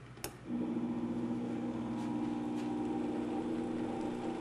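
Countertop blender switched on with a click, then its motor running steadily at low speed, churning a thickening pistachio pudding mixture.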